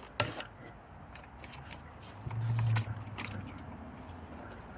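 Plastic door panel being worked into place against the door: a sharp knock just after the start, then faint taps and scrapes. A brief low hum sounds in the middle.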